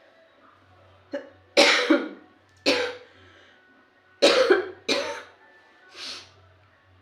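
A woman coughing with a cold: six harsh coughs in two quick bursts, the last one softer.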